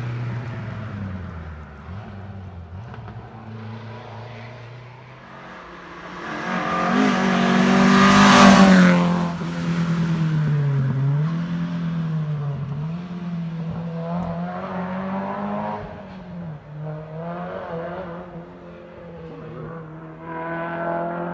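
Rally car engines on a closed road stage, revving hard through the gears as the cars approach and go by. The loudest pass comes about eight seconds in; after it an engine note dips and climbs again several times as a car brakes and accelerates, and another car's engine comes up near the end.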